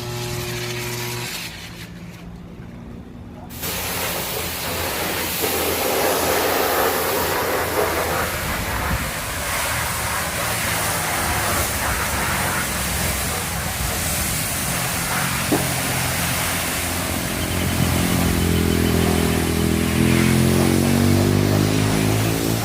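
MWM diesel engine of a pickup running, under a steady hiss of water spraying. Near the end the engine revs up a little, its pitch rising.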